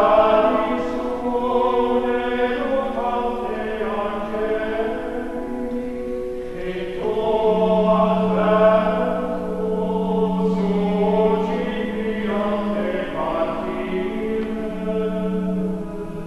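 Choir singing slow Latin liturgical chant for a Catholic funeral mass, in long held notes, with a new phrase beginning about seven seconds in.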